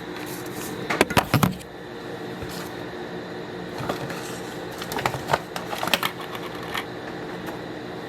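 Milk replacer container and bowl being handled: a cluster of knocks and clicks about a second in and another around five to six seconds, over a steady background hum.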